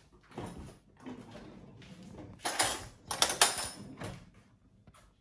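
A kitchen utensil stirring and scraping partly melted butter around a bowl, in several short scraping strokes.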